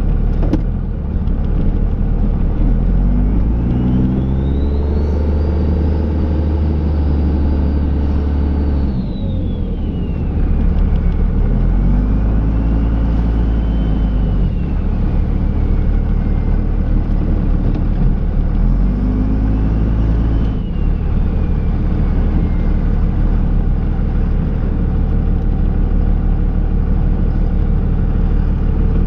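Dodge Ram's Cummins turbo-diesel engine running under load while plowing snow. It is revved up three times: a long rev early on, then two shorter ones. Each time a high turbo whistle climbs and falls with the engine speed.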